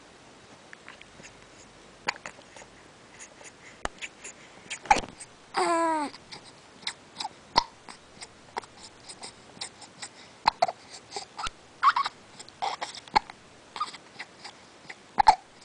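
A baby hiccuping, with short sudden hiccups every second or so, and cooing in small vocal sounds, including one longer coo that falls in pitch about six seconds in.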